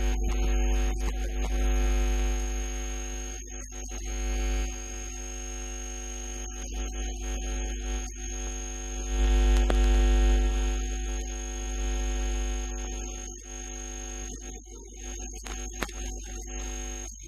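Steady electrical hum and buzz made of several held tones with a thin high whine over them, above a low rumble that swells near the start and again about halfway through.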